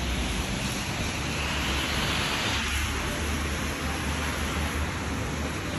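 Steady hiss of wet snow and rain falling, over a steady low rumble, swelling a little about two seconds in.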